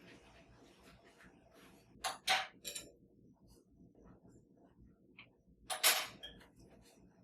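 Kitchen items being handled and set down with hard clattering knocks: three quick ones about two seconds in and a louder one near the end.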